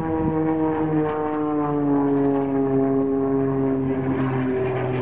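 Single-engine aerobatic propeller plane flying a display, its engine and propeller drone steady in loudness and falling slowly in pitch.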